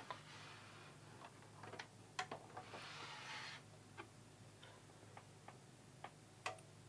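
Faint, irregular small clicks and ticks over a low steady hum, with a brief soft hiss about three seconds in.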